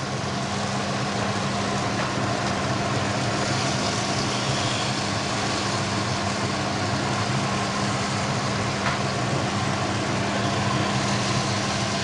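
Chicken sizzling in hot oil in a wok, a steady hiss as the beans and corn go in, over a steady low hum.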